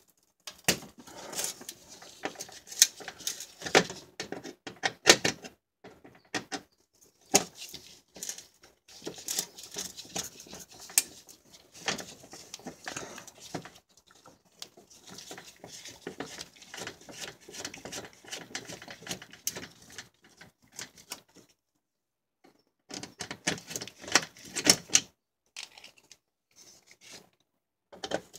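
Hand ratchet clicking in irregular bursts with short pauses, as fasteners are backed out of a metal splash shield under the car.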